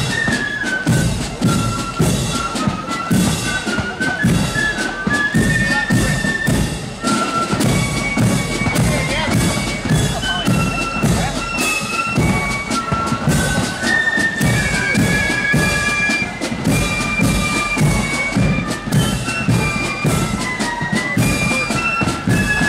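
Marching flute band playing a tune: a high, shifting flute melody over steady, rhythmic drumming.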